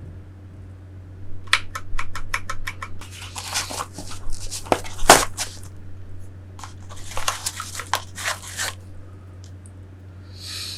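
Unboxing of a keyboard's packaging: a quick run of about eight clicks, then crinkling and tearing of the wrapping in two stretches, with a loud knock in the middle.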